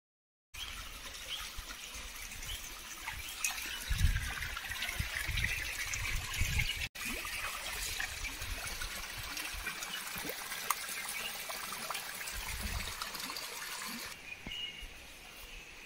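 Water trickling and splashing over rocks, starting after a short silence, with bouts of low rumbling in the middle and again later; it fades down about fourteen seconds in.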